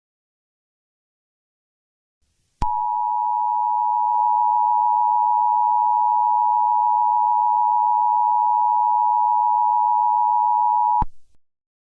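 Emergency Alert System attention signal: a loud, steady two-note electronic tone that starts abruptly after a couple of seconds of silence, holds for about eight seconds and cuts off sharply. It signals that an emergency broadcast message follows.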